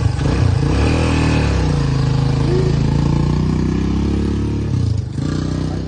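1997 Honda XR200 dirt bike's single-cylinder four-stroke engine running cold on choke, blipped up and down in the first couple of seconds, then holding a steady speed before dropping back near the end.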